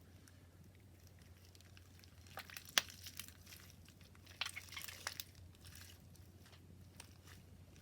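Hands squeezing and poking clear borax-free slime, giving faint sticky clicks and crackles that come in two short bursts, about two and a half seconds in and again around four and a half seconds in.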